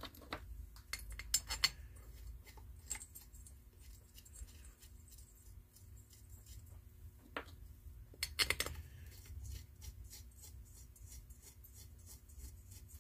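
Small metal clinks and taps of head bolts being handled and threaded into a lawnmower engine's cylinder head by hand, with a louder cluster of clinks about a second and a half in and again about eight seconds in. A steady low hum runs underneath.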